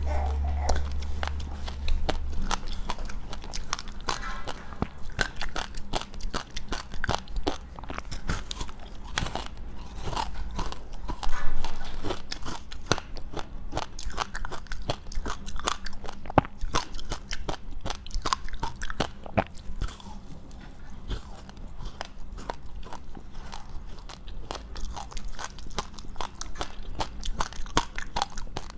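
A person biting and chewing dry, powdery white freezer-frost ice with passionfruit: a continuous run of rapid crunches, with one louder crunch about eleven seconds in.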